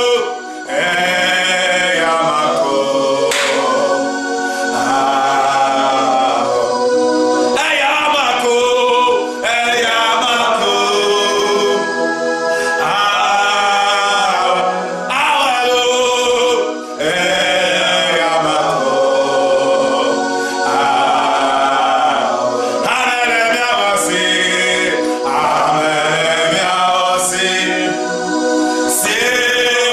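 A man singing a gospel worship song, phrase after phrase with brief breaks between them.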